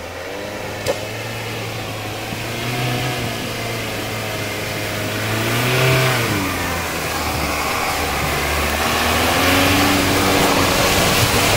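Engine of a custom-built LuAZ off-road vehicle working under load over rough ground. Its pitch climbs to a peak about six seconds in, drops, then rises again near the end.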